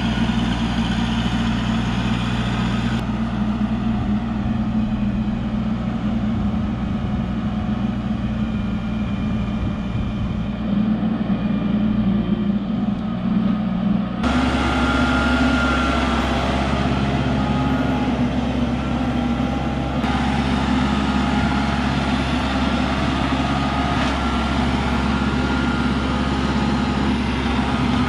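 Kubota tractor's diesel engine running steadily as the tractor moves around, the engine sound shifting abruptly twice, about 3 and 14 seconds in.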